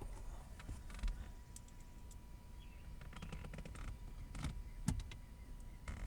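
Hand work on old plastic car interior trim: scattered clicks, taps and creaks as console panels and screws are handled and driven in with a screwdriver. The sharpest knocks come about 1, 4.5 and 5 seconds in, with a quick run of small ticks near the middle.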